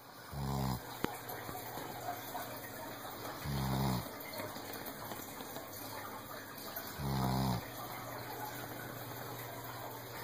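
Weimaraner dog snoring: three short, rasping snores about three and a half seconds apart, over a steady low background hum.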